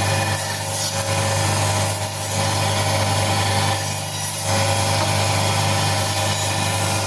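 Electric chicken-cutting machine running with a steady hum while cutting through chicken.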